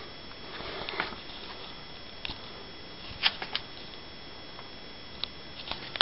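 Steady low hiss with a few short, light clicks and taps scattered through it, about six in all, two close together a little past three seconds.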